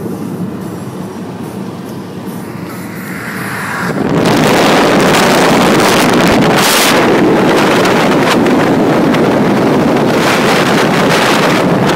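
Car travelling fast on a motorway: steady road and wind noise. About four seconds in it becomes a much louder rush of wind and tyre noise, heard from outside the car low on its side by the front wheel.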